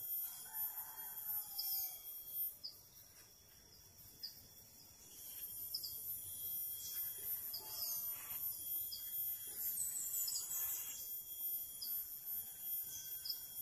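Quiet background of insects chirping: short high chirps about once a second over a steady thin high whine. Faint soft scraping as a blade lifts softened epoxy paint off a plastic part.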